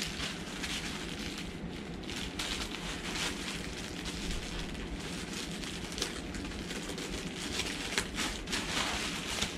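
Plastic bubble-wrap packaging rustling and crinkling as it is handled and unwrapped, with sharper crackles near the end.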